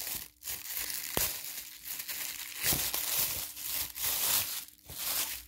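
Plastic packaging crinkling and rustling in irregular bursts as a parcel is unwrapped, with a couple of sharp clicks.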